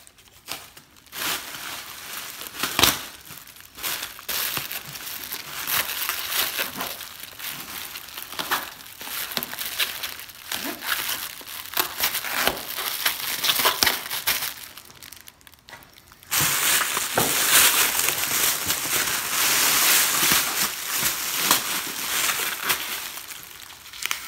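Crinkling and crackling of a Blizzard Blanket's reflective film being wrapped and pressed around a body, with sharp crackles. About two-thirds through it turns abruptly into a louder, unbroken rustle.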